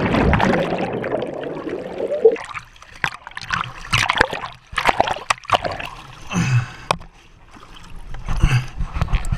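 Water splashing and sloshing around a jet ski after its riders have fallen in: heavy for the first two seconds or so, then lighter scattered splashes and knocks.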